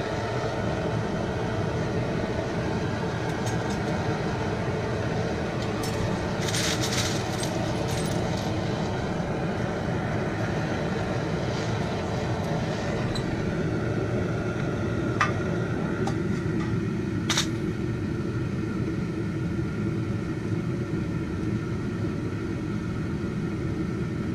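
Homemade foundry furnace firing, a steady, loud rushing noise throughout. A few light metallic clinks come from the spent aluminium cartridge casings as they are handled.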